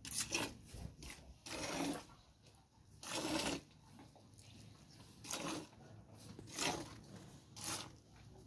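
Hand-milking a cow into a plastic bucket: short spurts of milk squirting into the foamy milk already in it, roughly once a second at uneven spacing.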